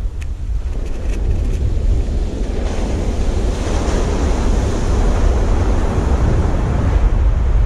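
Surf on a sandy beach: a wave breaks and its wash swells to its loudest about four seconds in, then eases. Under it runs a steady low rumble of wind on the microphone.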